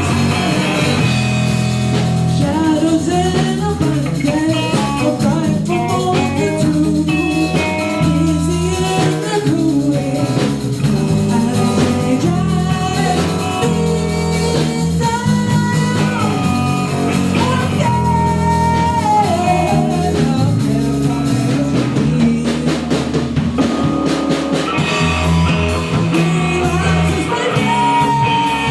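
Live rock band playing, with drum kit, bass and electric guitar; the guitar carries a lead line with bent notes. The cymbals drop out for a few seconds late on.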